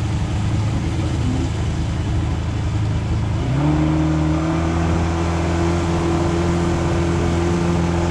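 Small boat's outboard motor running steadily, its pitch stepping up and holding higher about three and a half seconds in as the throttle is opened.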